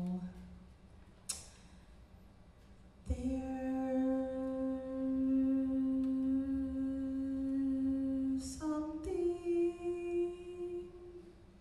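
A woman's voice sustaining long, steady vocal notes. A low note ends just after the start. After a pause, a long held note begins about three seconds in, then steps up to a higher held note around nine seconds, with short breaths between them.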